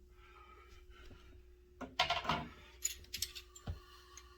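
Handling noise as the fishing rod and its fittings are moved in the hands: a short rattling clatter about two seconds in, then a few light clicks and a dull knock.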